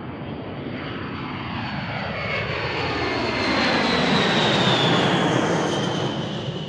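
B-52 Stratofortress's eight jet engines at takeoff power as the bomber climbs out past, loud jet noise with a high whine that slowly falls in pitch. It swells to its loudest about four to five seconds in, then begins to ease off.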